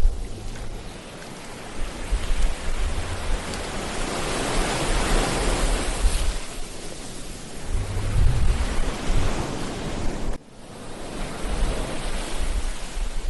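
Ocean waves breaking and washing up a beach, one wave swelling to its loudest about five seconds in, with wind rumbling on the microphone. The sound drops out for an instant about ten seconds in.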